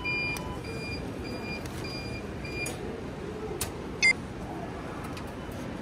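Automated luggage locker beeping about twice a second, the alert that the selected locker door has opened; the beeping stops a little under three seconds in and is followed by two sharp clicks.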